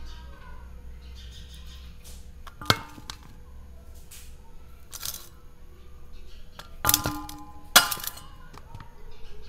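Sharp metallic clinks of a stainless steel bowl being knocked while garlic is peeled over it. There is one clink about three seconds in and two close together near the end, each ringing briefly.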